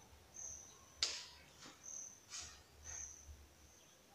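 Faint insect chirping: short high chirps at one steady pitch, repeating about once a second. A sharp click about a second in and a couple of softer knocks a little later.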